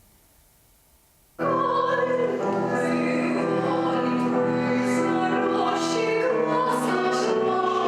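Classical, opera-style singing with piano accompaniment, starting abruptly about a second and a half in after near silence, with long held notes.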